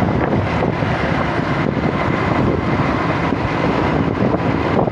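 Steady, loud rumble of wind on the microphone mixed with vehicle noise.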